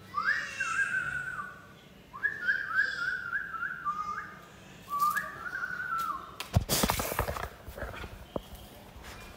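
High warbling whistles in three short phrases, each rising quickly and then wavering rapidly up and down, followed about two-thirds through by a cluster of knocks and rustling.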